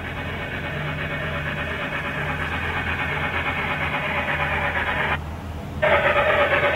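G-scale garden-railway model steam train running along its track: the locomotive's electric motor and gears humming steadily and the wheels rolling on the rails, growing louder as it approaches. About five seconds in the sound dips briefly, then comes back louder with a steady tone.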